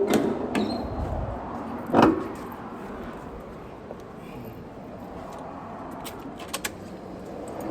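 A vehicle door shutting with a thump about two seconds in, then a few light clicks like keys being handled.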